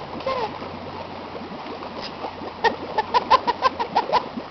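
Boston terrier snapping and nosing at shallow flood water, making a quick run of short splashes, about four a second, from a little past halfway.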